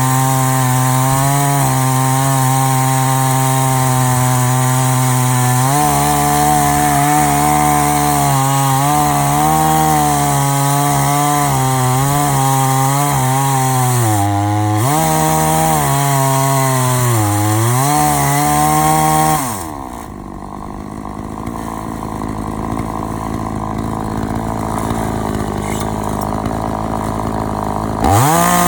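Chainsaw mounted in an Alaskan-style chainsaw mill running at full throttle through a log, its pitch sagging a couple of times under load. About two-thirds of the way in it drops back to a quieter idle, then revs up again near the end.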